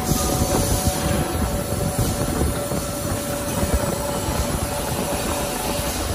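Centrifugal die-casting machine and its foundry equipment running: a steady, loud mechanical rumble with a faint steady whine over it.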